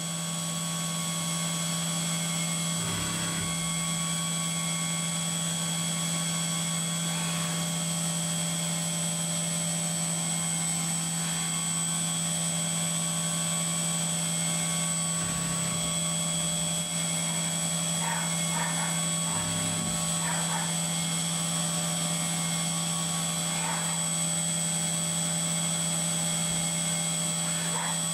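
CNC vertical mill running a 2 mm end mill under flood coolant, boring small holes in aluminium plate: a steady low hum with a constant high whine, and a few dull knocks along the way.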